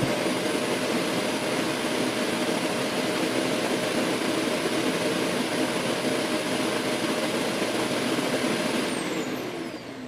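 DreameBot Z10 Pro's auto-empty base running its suction motor at full power, pulling dust and pet hair out of the robot's dustbin into the base's bag. It is a loud, steady rush with a high whine, which winds down with a falling whine about nine seconds in.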